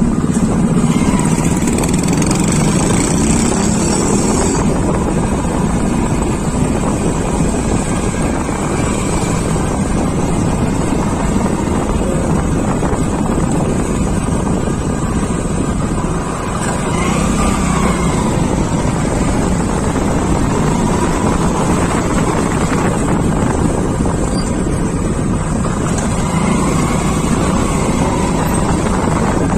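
Steady rush of wind on the microphone over a motorbike's engine running as it rides along a town road, with other traffic around.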